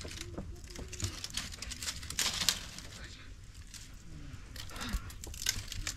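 Irregular rustling and soft scuffs of blankets and rugs being spread and smoothed out by hand on a floor.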